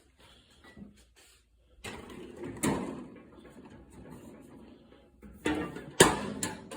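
Drawers of a tool-set case being slid shut and its lid handled, with clicks and knocks, then two sharp knocks near the end as the lid is closed, which locks the drawers in.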